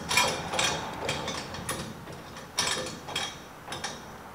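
Front steering of a classic Mini being swung from full right lock toward the left, a steering-geometry test of a modified steering knuckle: about half a dozen irregular mechanical clicks and clunks from the steering linkage.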